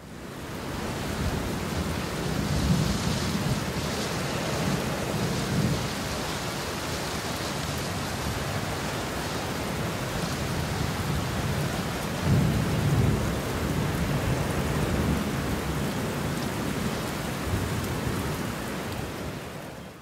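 Steady rain with low rolls of thunder, one a couple of seconds in and a stronger one about twelve seconds in; it fades out near the end.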